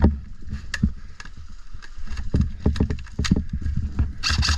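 Low rumble of wind and handling noise on a body-worn camera's microphone, broken by scattered sharp clicks and knocks. Near the end a loud hissing, crackling noise sets in.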